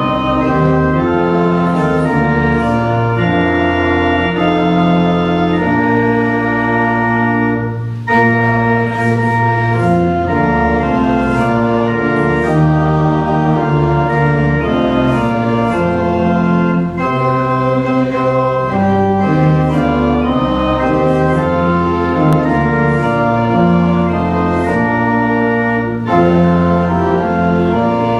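Pipe organ playing sustained chords that change every second or so, with a short break between phrases about eight seconds in.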